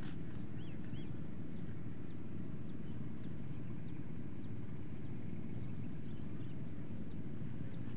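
A steady low outdoor rumble, with small birds chirping faintly now and then.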